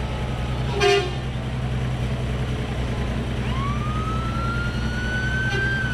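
Emergency vehicle siren winding up slowly and starting to fall away near the end, over a steady low engine rumble. A short, loud horn blast sounds about a second in.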